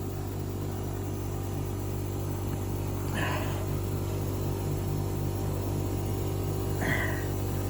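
A steady low mechanical hum with a regular pulse in it, and two brief scraping sounds, about three seconds in and again near the end.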